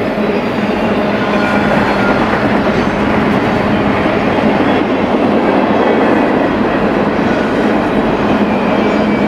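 BNSF freight train rolling past, a steady loud rumble of wheels on the rails with a faint steady low hum underneath.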